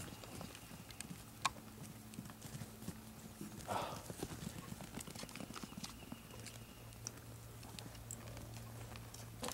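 Miniature horse foals' hooves on a grass lawn: scattered light knocks and thuds as they move about.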